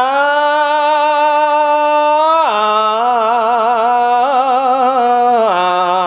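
Khmer smot, Buddhist chanted verse, sung solo by a male monk. A single voice holds long, wavering notes on a drawn-out vowel, stepping down in pitch about two and a half seconds in and again near the end.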